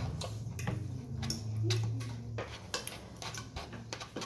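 Metal fork clinking and scraping against a ceramic plate while scooping rice and ground beef: a handful of sharp clicks spread out, over a low steady hum.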